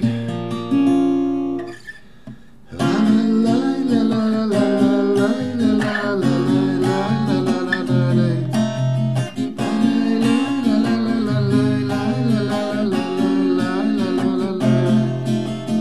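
Acoustic guitar with a capo playing a song's introduction: a few ringing notes, a short lull about two seconds in, then steady strummed chords.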